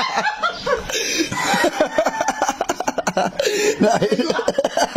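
Stifled laughter: snickering and chuckling in quick, choppy bursts.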